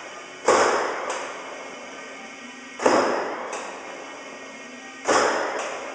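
Old Detroit Diesel 4-71 two-stroke diesel in a GMC 650 truck, struggling on a first start after decades standing and throwing off smoke. It gives three loud surges about two and a half seconds apart, each dying away over about two seconds.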